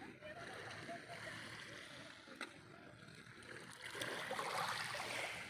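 Calm sea water lapping gently, with one louder wash of a small wave about four seconds in.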